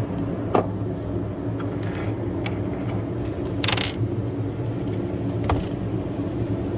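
Metal tools and parts clinking and tapping as they are handled, with half a dozen scattered light clicks and a slightly longer rattle near the middle, over a steady low mechanical hum.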